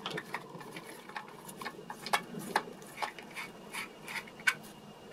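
Screwdriver turning out small screws from a hard plastic remote-control case, with irregular light clicks and ticks as the screws loosen and are set down on the table.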